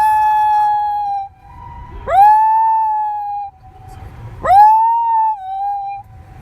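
Shiba Inu howling in response to a siren: three long howls, each sliding quickly up in pitch and then held for about a second and a half, with the fainter steady siren tone heard in the gaps between them.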